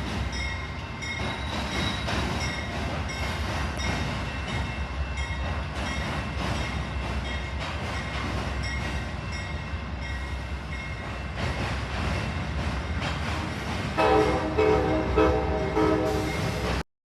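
Train running on the rails with a steady rumble and a faint high wheel squeal. About fourteen seconds in, the train's multi-note horn sounds loudly for about three seconds. Then the sound cuts off abruptly.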